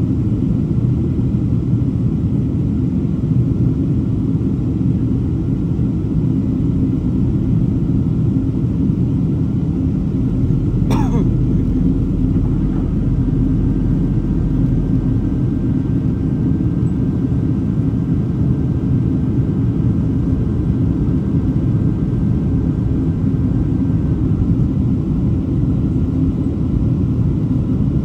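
Steady low rumble of jet engines and airflow inside an airliner cabin. There is a single brief sharp sound about eleven seconds in, and a faint thin whine from shortly after it until about three quarters of the way through.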